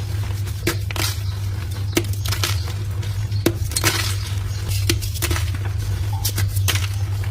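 Dyed gym chalk blocks being crushed, giving irregular crisp crunches and crackles over a steady low hum.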